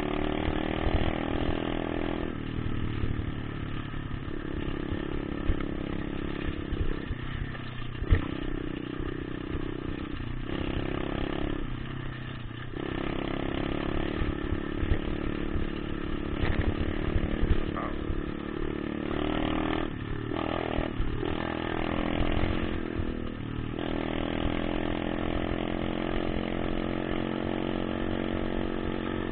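Motocross bike engine running under way as it is ridden, its pitch rising and falling with the throttle and gears and dropping off briefly several times when the throttle is closed.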